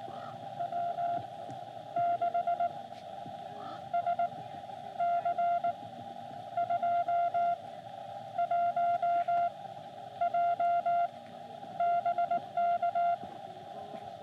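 Morse code (CW) from a Xiegu X6100 ham transceiver: a single steady tone near 700 Hz keyed on and off in dits and dahs, in several separate groups of characters. Under it runs the steady hiss of the receiver's narrow CW filter.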